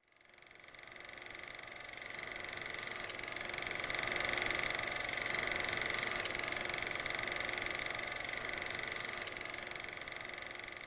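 A steady droning hum with a high whine on top, fading in from silence, swelling over the first few seconds and easing off near the end.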